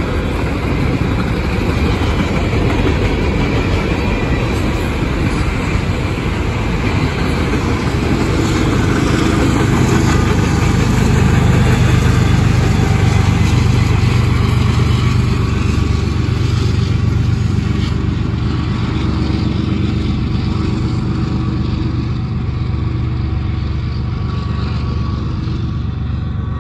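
Steady, loud vehicle rumble with a low engine hum that swells about ten seconds in and eases off toward the end.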